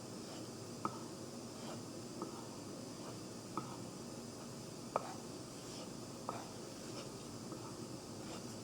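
Light, irregular clicks and ticks, roughly one every second, over a faint steady hiss.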